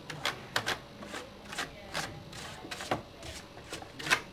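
A dusting brush swept in short, quick strokes over a plastic desk telephone, giving a run of brief bristly swishes and light taps, the loudest one near the end.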